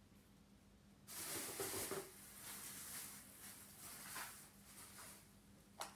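Rustling and handling noises close to the microphone as things are moved about, loudest for about a second near the start and then softer, ending with one sharp click.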